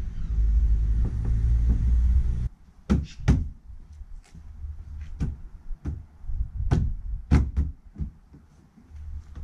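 A low rumble cuts off abruptly about two and a half seconds in. It is followed by a string of about nine sharp knocks and clicks, irregularly spaced, from hand work on the car's rear with the bumper removed during a towbar fitting.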